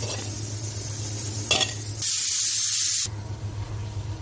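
Kitchen sounds while rotis are rolled and cooked on a tawa: a steady low hum with a faint hiss and a click about a second and a half in. About two seconds in comes a second of loud hissing, like sizzling, that starts and stops abruptly.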